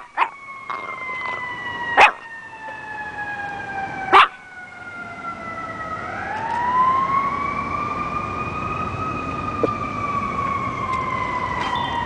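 An emergency-vehicle siren wailing slowly, its pitch sinking, then sweeping back up about six seconds in and easing down again. A dog gives two short, sharp barks, about two and four seconds in, which are the loudest sounds.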